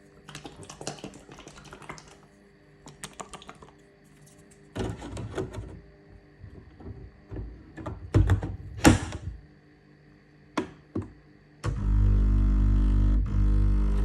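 A Bosch Tassimo coffee machine being handled: a series of plastic clicks and knocks. Near the end its pump starts with a sudden, steady, louder hum carrying a low pulse, as the machine begins to brew.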